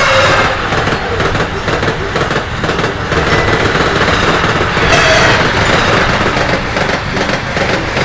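Train running past, a continuous fast rattle of wheels over rail joints on top of a steady rumble, played at double speed.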